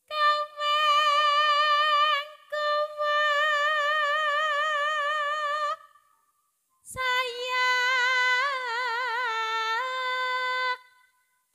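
A Javanese sindhen (female gamelan singer) singing solo, with no instruments playing. She sings three long phrases of held notes with a wavering pitch, and the last phrase is lower and more heavily ornamented.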